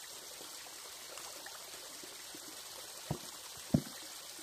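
Creek water running steadily over rocks, with two short dull knocks a little after three seconds in.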